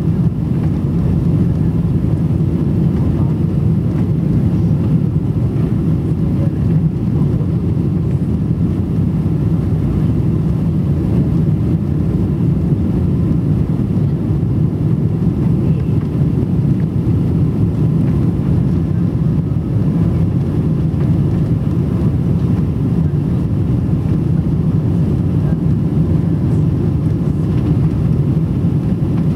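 Steady low roar of engines and rushing air inside the cabin of a Boeing 777 on final approach with flaps extended.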